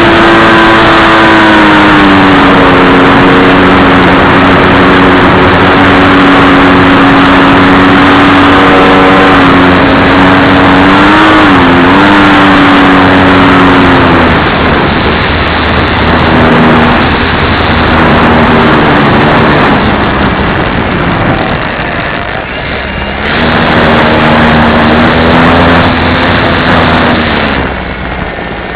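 RC model plane's motor running at a steady high pitch with rushing air noise, its pitch dipping briefly now and then as the throttle moves. About halfway through it fades, stops for a few seconds, comes back at a steady pitch, and drops away again near the end.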